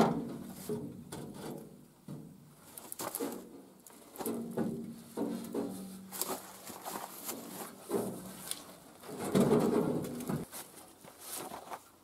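A sheet-metal panel on a generator housing being worked loose and lifted out by hand: scattered metallic knocks and clanks, with a grinding, scraping stretch near the end.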